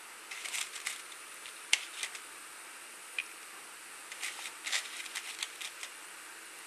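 Small gas burner hissing steadily under a graphite crucible of melting metal, with scattered sharp clicks and crackles. The sharpest click comes about 1.7 s in, and a quick cluster of them follows about four to five and a half seconds in.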